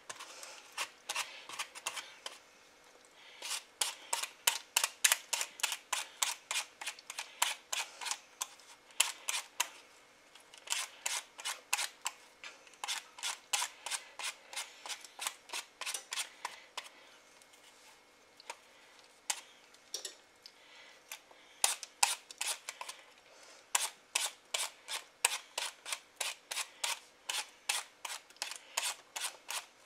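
A hand vegetable peeler scraping the skin off a Granny Smith apple in quick, crisp strokes, about three a second, with short pauses as the apple is turned.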